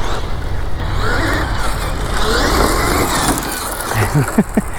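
Losi 6IX radio-controlled car driving, its motor whine rising and falling with the throttle over steady tire and ground noise. A few quick, sharp pitch swoops come near the end.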